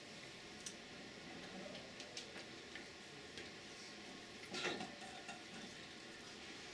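Faint room tone: steady hiss with a faint hum, scattered light clicks, and one louder short rustle about four and a half seconds in.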